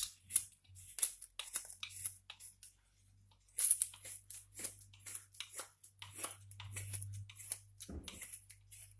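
Mora carving knife whittling wood off the side of an axe handle: a quick, uneven run of short slicing cuts, a couple or more a second, with a brief pause about three seconds in.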